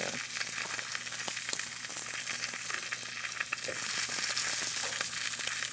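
Beef steak searing in a stainless steel pan: a steady sizzle with scattered small pops.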